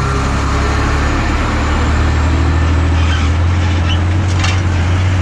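Vehicle engine humming steadily over loud road noise while driving, with a brief sharp click about four and a half seconds in.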